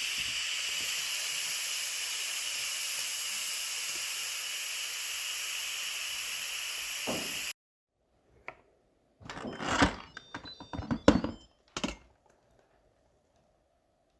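Instant Pot pressure cooker venting steam through its release valve during a quick release: a steady hiss that cuts off abruptly about seven and a half seconds in. A cluster of clicks and knocks follows.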